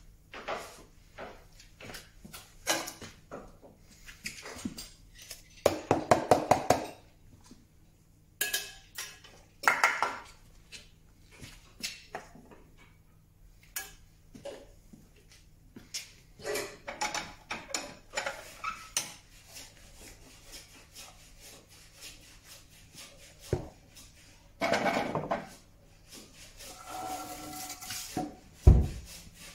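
Clatter and knocks of tools and equipment being handled and set down while putting things away, with a fast rattling run of clicks about six seconds in.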